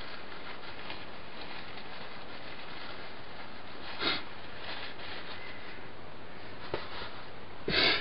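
Steady background hiss, with a person sniffing briefly about four seconds in and drawing a breath just before the end.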